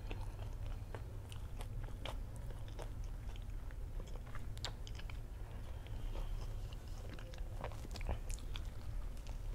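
Close-miked chewing of a crispy fried sausage on a stick coated in batter and diced potato: irregular crunches and crackles with no speech.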